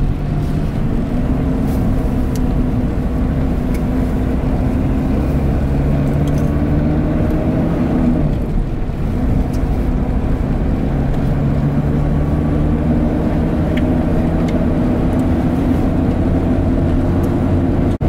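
A motor vehicle's engine running under way with a heavy low rumble. Its pitch climbs slowly, falls away briefly about halfway through, then climbs again.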